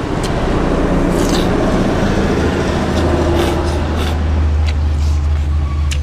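Low, steady engine rumble of a motor vehicle. It builds about a second in and eases off near the end, with a few faint clicks over it.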